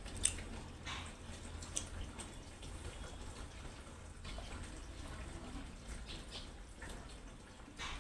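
A person drinking water from a glass, with faint swallows and small mouth clicks every second or two over a low steady hum.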